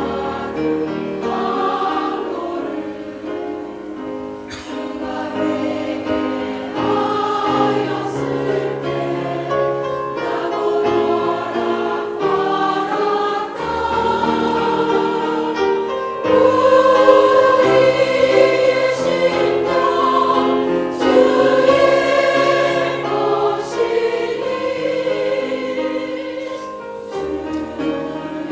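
A choir singing sustained chords in several parts, swelling louder about sixteen seconds in.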